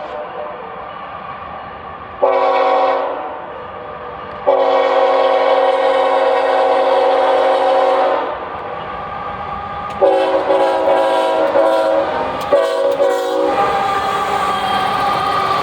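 Norfolk Southern locomotive's five-chime Nathan Airchime horn, which the railfan takes for a K5HL, blowing a string of blasts: a short one, a long one of about four seconds, another long one, a short one, then sounding more softly near the end. The rumble of the train runs under it.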